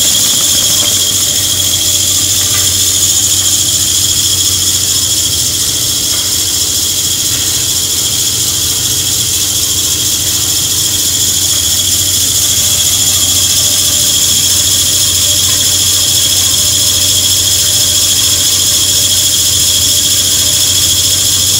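Snack-pellet production line running: steady machinery noise with a continuous high-pitched whine over a low hum.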